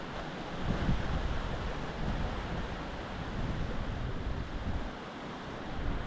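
Sea waves washing and breaking over a rocky shoreline in a continuous rushing surf, with wind gusting irregularly on the microphone.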